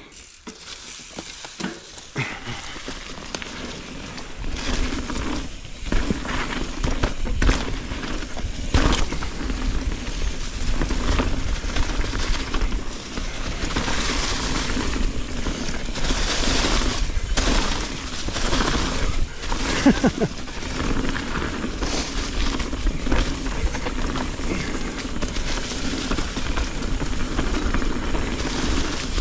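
A mountain bike descending a dirt trail covered in dry leaves, heard from a camera on the rider: tyres rolling and crunching through the leaves, the bike clattering and rattling over bumps, and wind rumbling on the microphone. It starts quiet and builds over the first few seconds as speed picks up.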